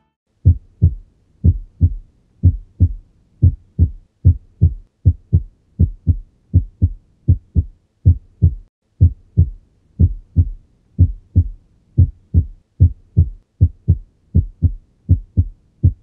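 Heart sounds heard on auscultation: first and second heart sounds in lub-dub pairs of short low thumps, roughly one pair a second. This is phasic sinus arrhythmia, in which the beats speed up on inspiration and slow on expiration.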